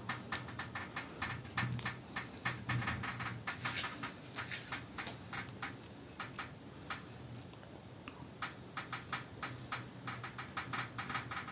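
Glass panes of a sliding door or window rattling in their frame: a fast, irregular run of light clicks and ticks that thins out around the middle and picks up again toward the end. The glass is shaking from the booms reported that night.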